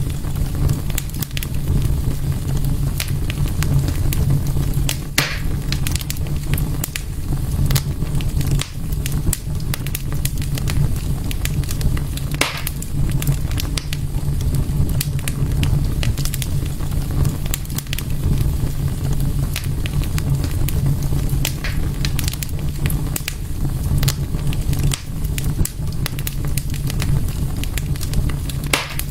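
Wood fire in a fireplace crackling steadily, with frequent sharp pops and snaps over a low, even rumble.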